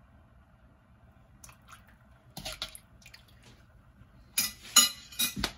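Kitchen utensils clinking as sauces are measured out by the teaspoon: a few light clicks, then a quick run of sharp, loud taps about four and a half seconds in.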